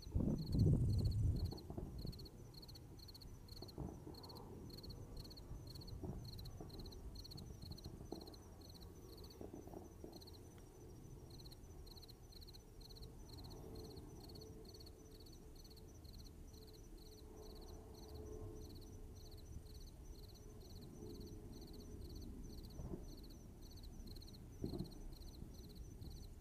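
Night insects chirping in a steady high-pitched pulse, about two to three chirps a second. A brief low rumble comes about a second in, and a few faint low thumps come later.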